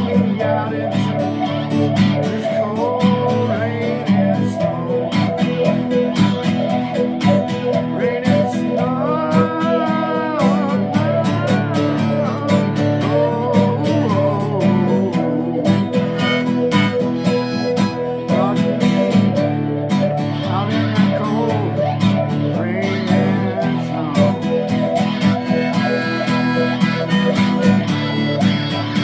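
Guitar played through a small VOX amp with a wah pedal: an instrumental passage of chords with lead notes that bend and waver in pitch.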